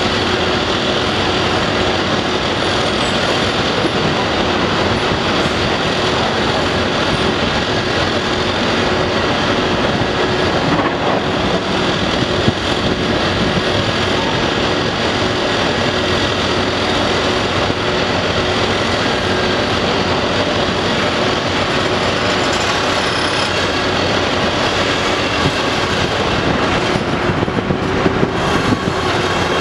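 Diesel engines of heavy construction machinery, tracked excavators and a crawler crane, running together in a steady din with a steady hum. A few brief knocks come near the end.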